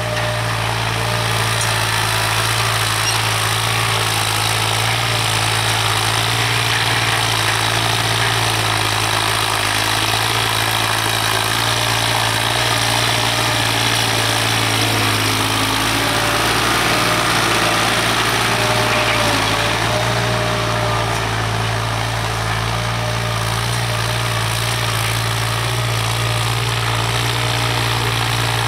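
New Holland TT55 tractor's diesel engine running steadily under load while it pulls a cultivator, a steady drone that grows a little louder midway through.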